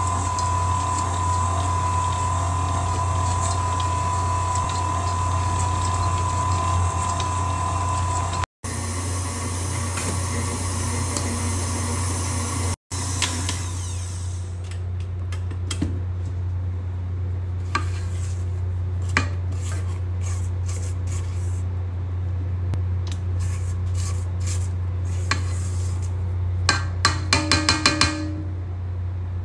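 Electric stand mixer running steadily with a low motor hum, its flat beater creaming butter and sugar in a metal bowl. Near the end, a quick series of clinks against the bowl as it is scraped down.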